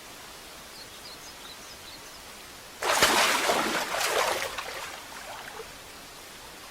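Outdoor ambience: a steady hiss with a few faint bird-like chirps, then about three seconds in a sudden loud rush of noise that fades away over about two seconds.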